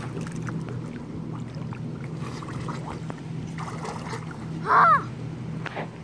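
Steady low hum of a boat motor across the water, with light splashing in the shallows and a short, loud, high-pitched squeal about five seconds in.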